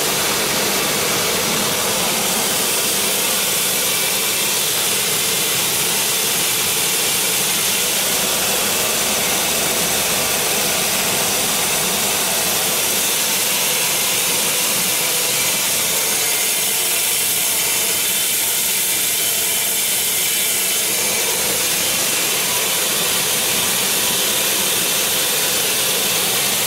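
Roasted peanut skin peeling machine running at a steady level, giving a loud, even, hissing machine noise while peeled kernels pour out.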